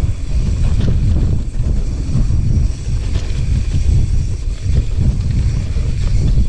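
Strong wind buffeting a mountain biker's microphone, a dense, unbroken low rumble.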